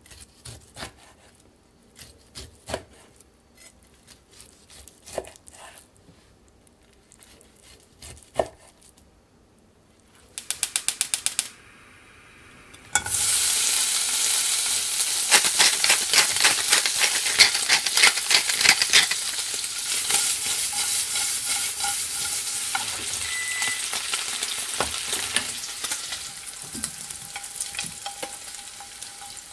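A knife cutting smoked pork belly on a wooden board, a few separate chops; then a gas hob's igniter clicks rapidly for about a second; then the pork chunks sizzle loudly in a frying pan as they are stirred, the sizzle easing a little near the end.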